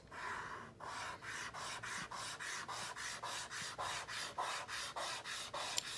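A stick of compressed charcoal scraped back and forth on drawing paper in quick, even strokes, about four a second.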